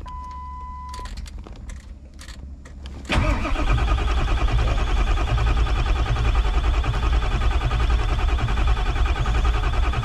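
A short steady beep in the first second, then from about three seconds in a starter cranks the diesel engine over steadily, at about 155 rpm, without it firing. It will not catch yet because the high-pressure oil pump is still building injector control pressure after its reservoir drained down; the injectors need about 500 psi before they fire.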